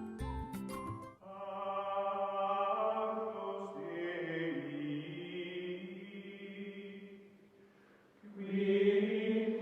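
Background music: about a second of tones with sharp percussive strokes, then long held choir-like chords that fade out about seven and a half seconds in and return near the end.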